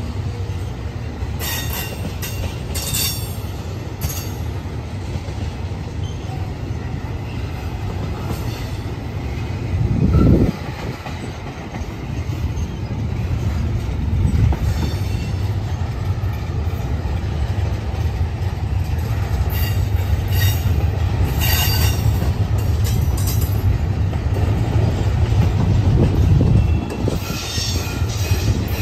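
Double-stack intermodal freight train's loaded well cars rolling past on the rails, making a steady low rumble. Brief high screeches of wheel on rail come a few times, and there is a short louder low thump about ten seconds in.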